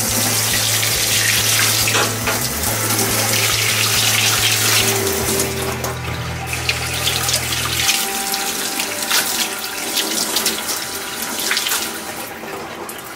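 Tap water running hard from a faucet into a stainless steel sink, splashing over a whole seabass as it is rinsed by hand, with a few knocks from handling the fish.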